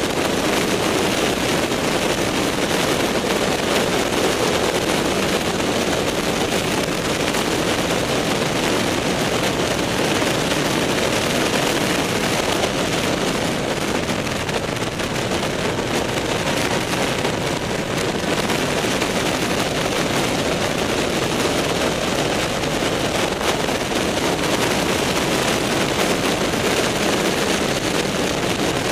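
Wind rushing and buffeting over the microphone of a camera mounted on a moving motorcycle, a steady loud roar with the bike running beneath it.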